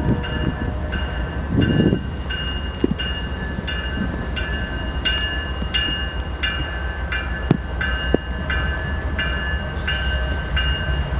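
A railroad warning bell ringing evenly, about one and a half strikes a second, over a steady low rumble from a diesel freight train switching cars. A few sharp knocks stand out.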